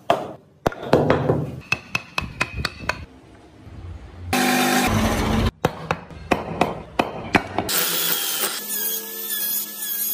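Wood-carving tools working on wood: a run of sharp taps and knocks, broken twice by a power tool running steadily, first for about a second near the middle and again from about three-quarters of the way in.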